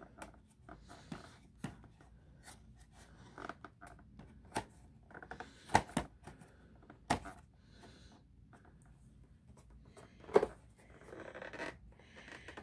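Cardboard card box being handled: scattered sharp clicks and taps as the flap and box are worked, with light rustling of the cardboard, the loudest knock about ten seconds in.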